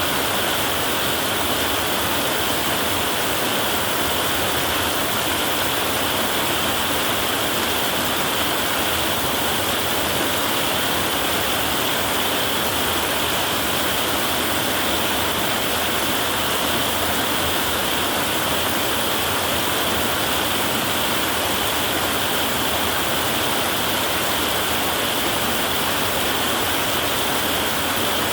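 Heavy rain falling steadily on a tin roof, an even wash of sound with no breaks.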